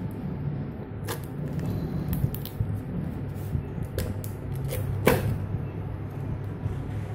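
Hands handling a cardboard parcel and picking and pulling its white packing tape off, giving scattered scratches and clicks, the sharpest about five seconds in.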